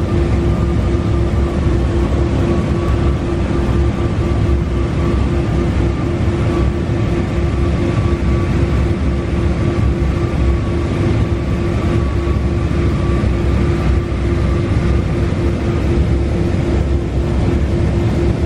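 KMT dual RoboTrim six-axis robotic trim router cell running: a steady, loud machine hum with one constant tone over a low rumble, and a fainter higher tone that wavers slightly as the robot arms move.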